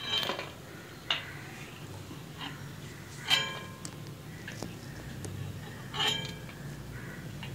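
Steel perforated skimmer clinking against a steel plate as fried vadas are tipped off it. Four sharp metallic clinks, the loudest about three seconds in, each with a short ring, over a steady low hum.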